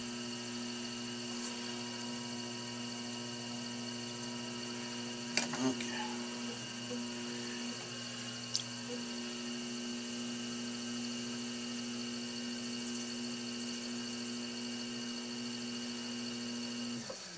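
Electric pottery wheel motor humming steadily while it spins, with a couple of faint clicks from the trimming work about five and eight seconds in; the hum cuts off suddenly near the end as the wheel is switched off.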